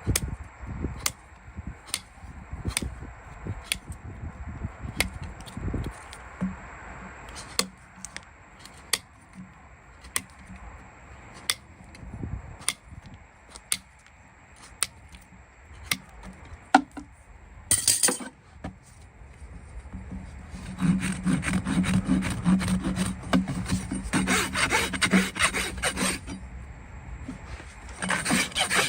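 Farrier's tools working a horse's hoof: short sharp scraping strokes about once a second, then from about two-thirds in a rasp filing the hoof in quick continuous strokes.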